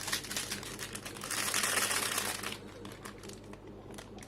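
Packet of chicken masala powder crinkling and rustling as it is handled and emptied, with a louder rustle lasting about a second in the middle.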